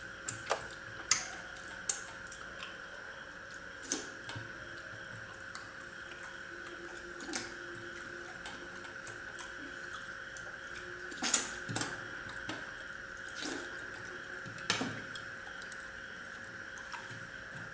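Two people eating with their hands: scattered short wet smacks and clicks of fingers being licked and food scooped from small steel bowls, about a dozen spread unevenly, over a steady faint hum.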